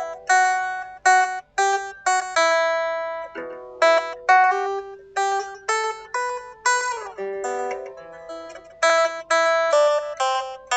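Solo guitar improvisation: single plucked notes and short note pairs ring out one after another and decay between picks, with a quick descending slide of notes about seven seconds in.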